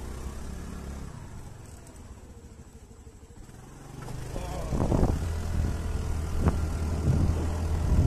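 A two-wheeler's engine running as it rides along, with a steady low rumble. About halfway through it grows louder, with several sharp knocks and jolts as it goes over rough, rutted dirt.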